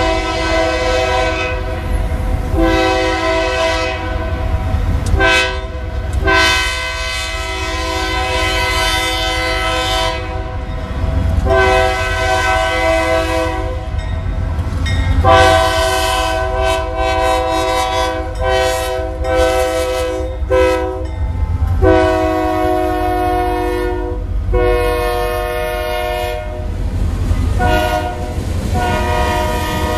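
Diesel locomotive air horn sounding a long series of blasts, some long and some short, with several tones at once. The low rumble of the moving train runs underneath.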